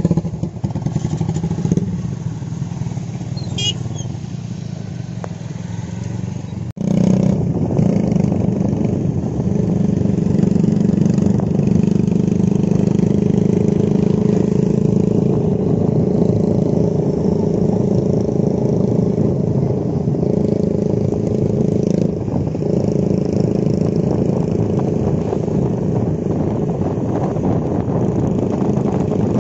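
Motorcycle engines running at a steady cruising pace, a continuous drone with road noise. It cuts out for an instant about seven seconds in, then carries on.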